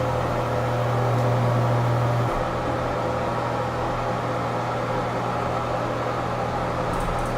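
Hydraulic elevator travelling up, with the steady electric hum of its pump motor; the deepest tone of the hum drops in level about two seconds in, and a few faint ticks come near the end.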